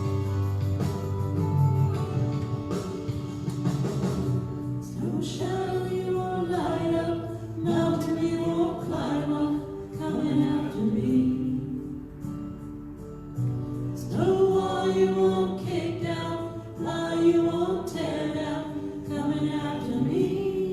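Christian worship song with instrumental backing. Sung voices come in about five seconds in and carry the melody in phrases.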